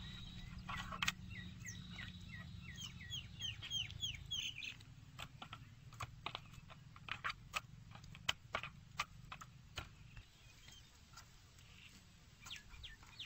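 Birds chirping: a quick run of short repeated chirps for the first few seconds, then scattered sharp single calls, over a faint low steady hum.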